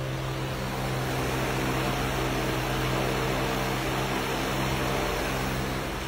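Misting fan running steadily: an electric fan motor's low hum under an even rush of air.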